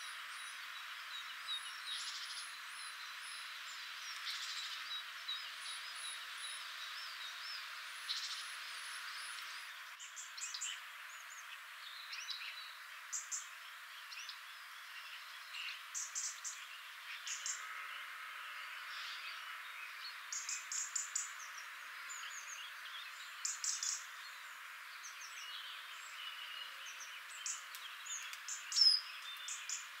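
Several songbirds singing and chirping, with short high calls overlapping one another over a steady background hiss. One sharper, louder chirp comes near the end.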